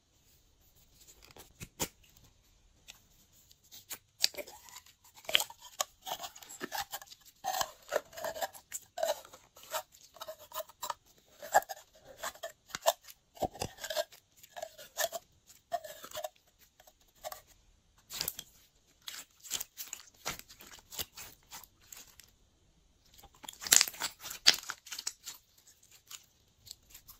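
Green slime pulled from its tub and stretched and squeezed by hand: a run of sticky crackles, pops and squelches, coming in clusters, with a louder burst near the end.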